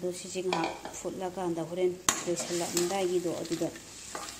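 Snail curry sizzling in a metal wok while a metal ladle stirs through it, with a sharp clank of the ladle against the wok about two seconds in.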